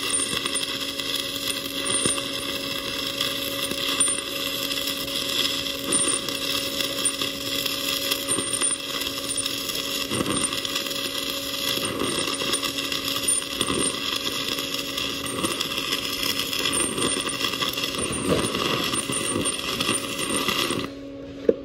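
Stick (SMAW) welding arc from a 1/8-inch Lincoln 5P E6010 electrode crackling and sputtering steadily with irregular pops as a fillet weld is run with a back-and-forth whip motion. The arc cuts off suddenly about a second before the end as it is broken.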